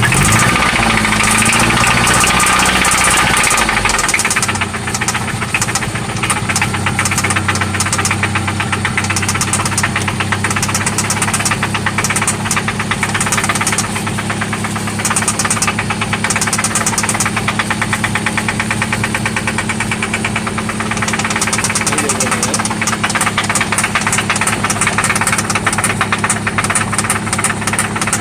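1995 Toyota Celica ST's four-cylinder engine running with a rapid, steady knock, briefly rising and falling in engine speed in the first few seconds. The knock is still there after an oil change and new spark plugs.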